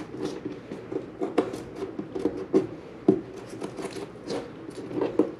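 Adhesive tape being handled: pulled off the roll, torn and pressed down by hand, giving irregular short crackles, clicks and rubs.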